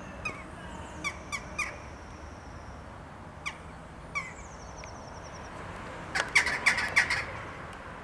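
Western jackdaws giving short, sharp calls: a few single calls spread through the first half, then a louder quick run of calls about six seconds in. Faint thin high whistles of other birds sound in the background.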